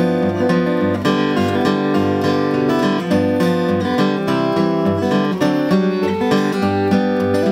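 Steel-string acoustic guitar played fingerstyle, a melody of plucked notes over a recurring bass line.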